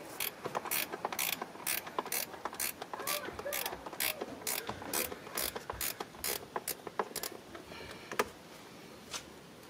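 Hand ratchet wrench clicking at about three clicks a second as a bolt is turned out, stopping about seven seconds in, with two single clicks after.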